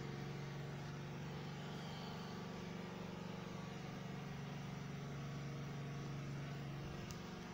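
Steady low mechanical hum at a constant pitch, like a motor or engine running, easing slightly near the end.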